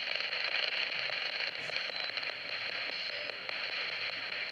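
Spirit box scanning through radio frequencies: a steady hiss of radio static with faint crackles.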